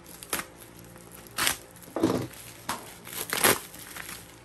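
Plastic packaging bag crinkling and tearing as it is cut and pulled open by hand, in several short bursts, the loudest near the end.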